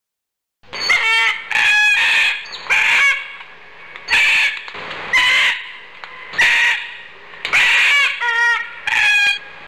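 Cockatoo screeching: a series of harsh, loud calls, about one a second, starting just under a second in.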